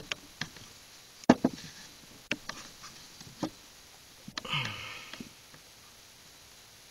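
Scattered sharp taps and clicks from hands working wet natural-fiber lashing around a bamboo pole while tying off a square knot, the loudest about a second in. A short vocal sound with a falling pitch comes about four and a half seconds in.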